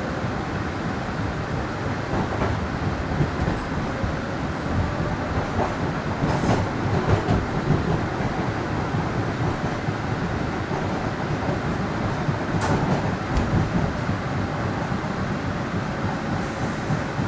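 MBTA Green Line light-rail train running between stops, heard from inside the car: a steady rumble of motors and wheels on the rails. Two sharp clacks stand out, one about a third of the way in and another about three-quarters through.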